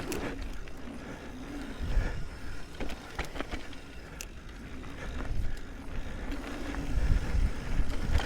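Mountain bike descending a rough dirt trail: tyres rumbling over ruts and roots, with rattles and sharp knocks from the bumps, getting louder toward the end as the speed picks up.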